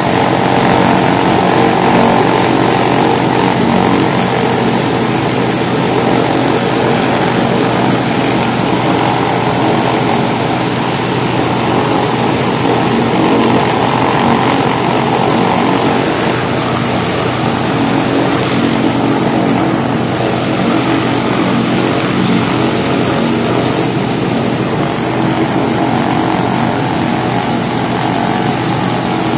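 A Douglas DC-3's Pratt & Whitney R-1830 Twin Wasp fourteen-cylinder radial engines running at a steady speed on a ground run, with the propellers turning. Loud and even throughout.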